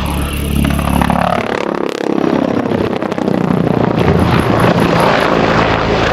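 Agusta A129 Mangusta attack helicopter passing close overhead: its twin turboshaft engines and main rotor running loud, the pitch falling about a second in as it goes by, then the rotor blades beating steadily.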